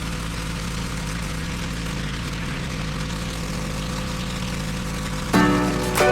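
Pressure washer running steadily, a low engine hum under an even hiss. Music with plucked notes comes in about five seconds in.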